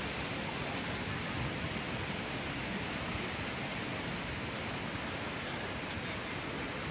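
Steady rushing outdoor noise, an even hiss with no distinct events.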